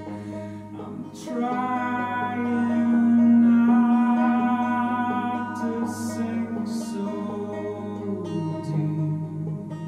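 A man singing a slow folk song over a plucked banjo. His voice comes in about a second in with a long held note, and falls in pitch near the end.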